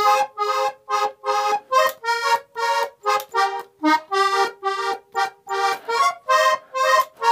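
Hohner Corona III three-row button accordion playing a vallenato accompaniment figure in A-flat. It plays short, detached chords in a steady rhythm, about three a second.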